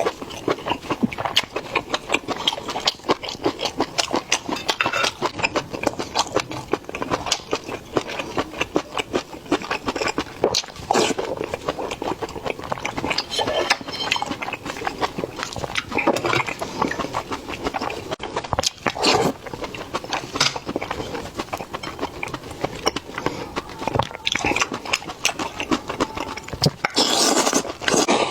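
Close-miked mouth eating sounds: continuous wet chewing, lip-smacking and sucking clicks on spicy meat, with a louder slurp near the end.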